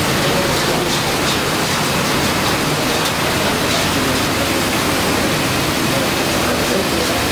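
Loud, steady rushing hiss from a restaurant karahi cooking range, with many gas burners flaming under rows of woks.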